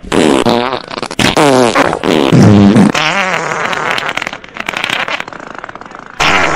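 Comic fart noises imitating piglets at a trough: squealing farts that slide up and down in pitch for about three seconds, then rougher, lower grunting rasps, with another loud burst near the end.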